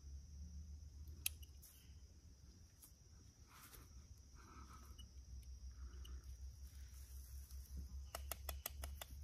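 Faint handling and rustling of dry grass tinder as a smouldering fungus ember is pressed into it, with one sharp click a little over a second in and a quick run of sharp crackles of dry grass near the end. A steady insect drone sounds underneath.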